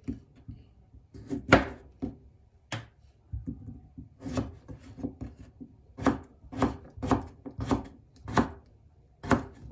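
Santoku knife chopping a carrot on a wooden cutting board: a string of sharp knocks, spaced unevenly at first, then coming about twice a second in the second half.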